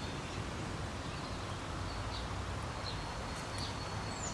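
Outdoor garden ambience: a steady low rumble, with a few faint, short, high bird chirps in the second half.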